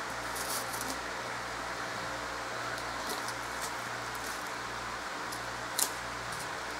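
Steady low hum and hiss of room noise, with a few faint clicks and rustles as a foam tombstone is handled, and one sharper click about six seconds in.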